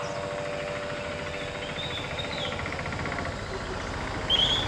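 Vehicle engine running with a steady low rumble, with a few short high bird chirps over it, one about two seconds in and another near the end.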